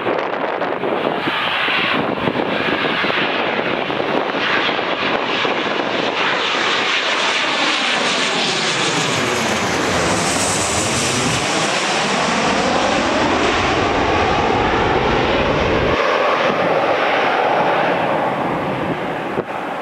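Boeing 737-800's twin turbofan engines on final approach, passing low directly overhead. A loud, steady jet rush and whine swells to its brightest as the aircraft passes overhead about halfway through. Its phasing whoosh sweeps down and then back up as the jet moves away.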